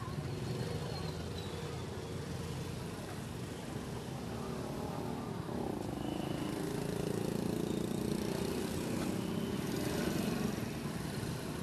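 Street ambience dominated by motorbike engines running nearby, a steady low rumble that grows a little louder in the second half.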